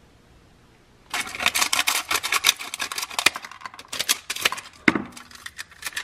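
Stainless steel heat-treat foil crinkling and tearing as the foil pouch is opened and peeled off a freshly quenched knife blade: a dense, irregular run of crackles that starts about a second in.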